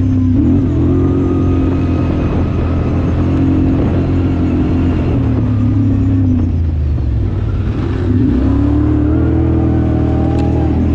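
A vehicle engine running close by under varying throttle. It revs up about half a second in, settles, eases off briefly before eight seconds in, then revs up again.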